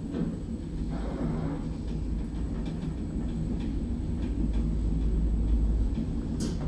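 Passenger lift car travelling down: a steady low rumble of the ride, swelling slightly a few seconds in, with a few faint ticks and a short hiss near the end.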